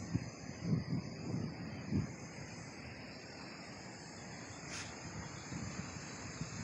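Steady high-pitched insect chorus, with low bumps of wind or handling noise on the microphone during the first two seconds and a brief high chirp near five seconds in.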